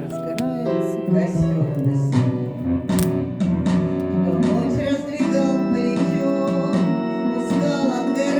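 Song music led by a plucked guitar, with a steady flow of picked notes.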